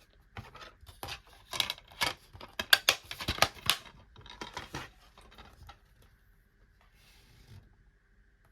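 Packaging being handled and opened: a quick run of crackling rustles and snaps over about five seconds, loudest in the middle, then faint rustling near the end.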